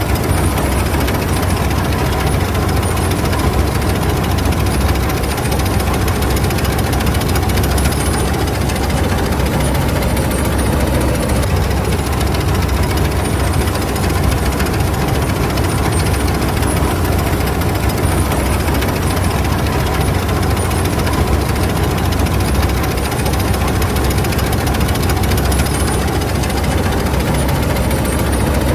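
Claas Mercator 50 combine harvester running steadily at work, a loud, even drone from its diesel engine and machinery.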